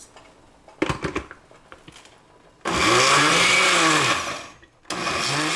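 Oster countertop blender: a few clunks as the glass jar is set on the base, then the motor runs in two pulses, the first rising in pitch and winding down after about two seconds, the second starting near the end. It is coarsely grinding boiled tomatoes and serrano chiles for a salsa.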